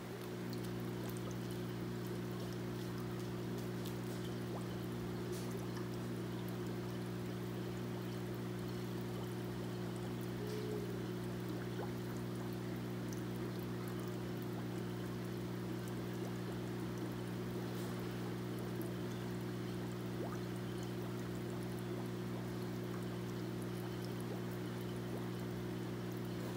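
Water pouring and splashing steadily into an aquarium tank from the filter return, over a steady low electrical hum.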